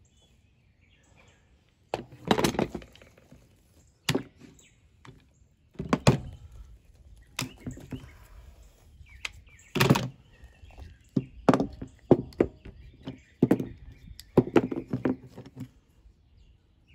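Plastic quick-release bar clamps and spring clamps being unclamped from a glued brake band and set down on a wooden workbench: an irregular series of sharp clicks, clacks and knocks, about a dozen, starting about two seconds in.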